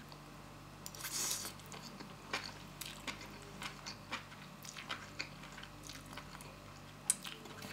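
A person eating noodles: faint slurping and chewing with small wet mouth clicks.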